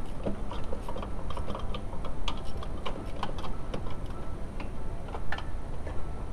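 Ratchet wrench clicking in irregular runs as 10 mm fasteners are worked on a radiator fan assembly.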